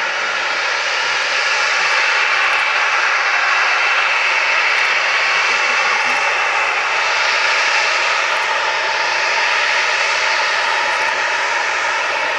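Boeing 737-800's two CFM56-7B turbofan engines at taxi power as the airliner taxis: a loud, steady jet whine with several held tones over a continuous roar, growing a little louder about two seconds in.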